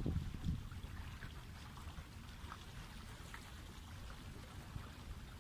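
Water lapping and trickling at the shore, with small drips and splashes. Low wind rumble on the microphone fades in the first second.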